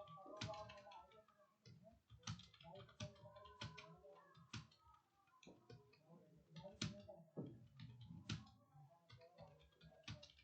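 Computer keyboard being typed on at a steady working pace, a quiet run of irregular key clicks with a few sharper strokes.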